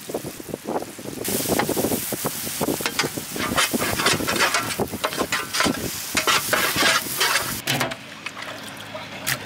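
Onion-tomato masala with freshly added spice powders sizzling in a wide kadai while a ladle stirs and scrapes it in quick, irregular strokes. The stirring cuts off near the end.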